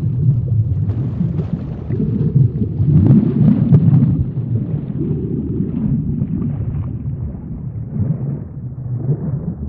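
Low, muffled underwater rumble of moving water, swelling and easing a few times.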